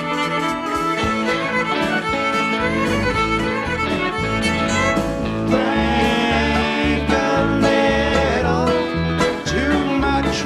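A live rock band playing an instrumental passage led by a violin, over bass guitar, drums and guitar. The violin's line has sliding notes about halfway through and again near the end.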